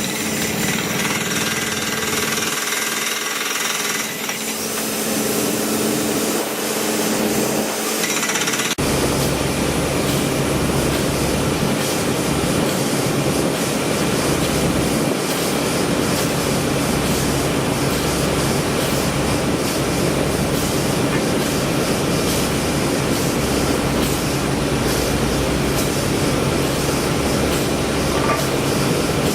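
Jackhammer hammering continuously at a construction site. About nine seconds in the sound changes abruptly to a denser, lower pounding.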